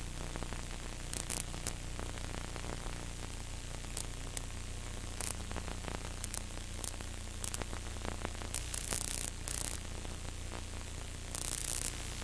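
Steady static hiss with a low hum and scattered brief crackles: the noise of an old analog videotape recording with no programme sound on it. The crackles grow denser near the end.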